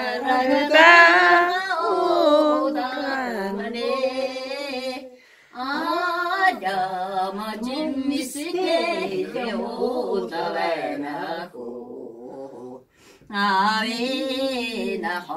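A woman singing unaccompanied, with long held notes and a wavering vibrato. She pauses between phrases about five and thirteen seconds in.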